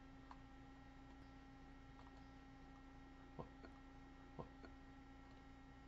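Near silence: a steady low electrical hum with a few faint computer-mouse clicks, the clearest about three and a half and four and a half seconds in.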